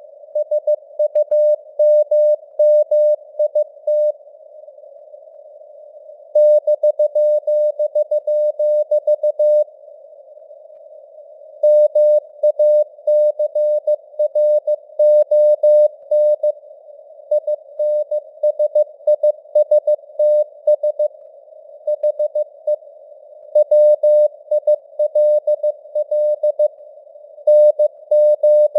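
Morse code (CW) sent at 15 words per minute: a single mid-pitched tone keyed on and off in dots and dashes, over a narrow band of hiss from simulated radio band noise. The keying stops for about two seconds twice, between groups of characters.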